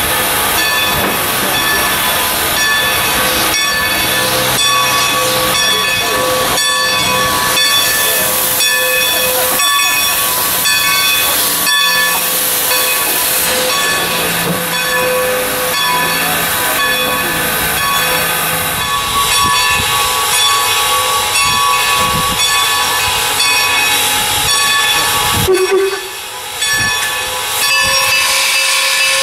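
Standing 4-8-0 steam locomotive, N&W 475, hissing steam steadily and loudly, with a constant whine and irregular thumps from its running gear and equipment. The sound dips briefly near the end.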